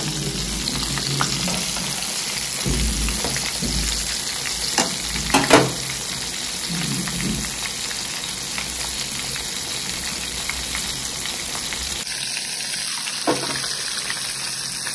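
Semolina- and gram-flour-coated bombil (Bombay duck) fish frying in hot oil, a steady sizzle. A few sharp clicks about five seconds in.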